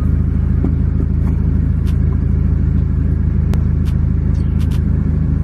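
Loud, steady low rumble of a running motor with a droning hum, with a few faint clicks.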